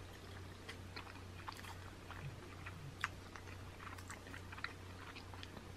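Faint close-up mouth sounds of biting and chewing a buffalo chicken wing flat: scattered soft smacks and small crisp clicks over a steady low hum.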